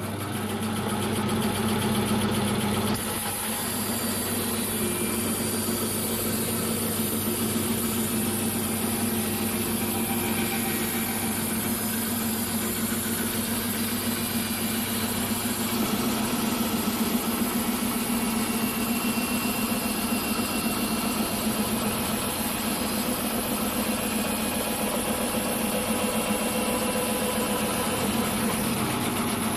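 Startrite vertical bandsaw running and ripping a deep board stood on edge: a steady motor hum with the hiss of the blade cutting, which joins about three seconds in and holds steady.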